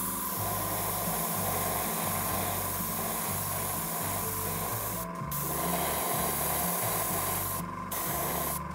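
Airbrush spraying gold paint: a steady hiss of air and paint mist that breaks off briefly twice, about five seconds in and again near the end.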